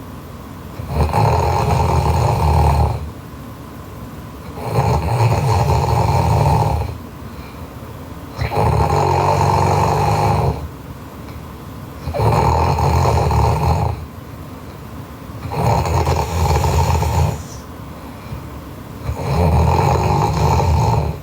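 A sleeping woman snoring loudly: six snores, each about two seconds long, coming roughly every three and a half seconds with quieter gaps between.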